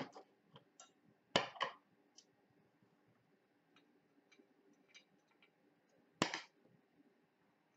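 A handful of light, sharp clicks and taps from a small hand tool and a porcelain dish being handled. The loudest are a pair about a second and a half in and one about six seconds in, with fainter ticks between.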